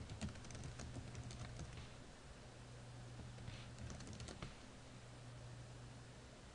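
Computer keyboard typing: a quick run of key clicks in the first two seconds and a few more a little past halfway, over a steady low hum.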